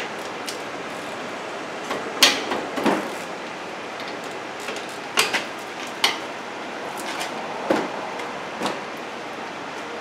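Metal hand tools clanking against the front brake caliper of a 2010 Honda Accord as the caliper bolts are taken out: a handful of short, irregular knocks over a steady low hiss.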